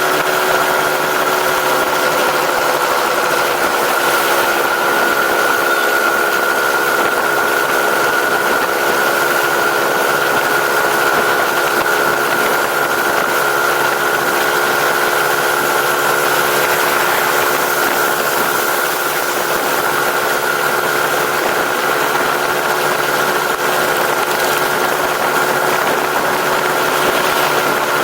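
Engine running at a constant speed, a steady whine over an even rushing noise that does not rise or fall.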